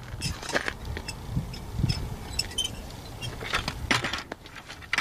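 Scattered crunches and clicks of snow and ice on the frozen lake surface, with a couple of low thumps between one and two seconds in.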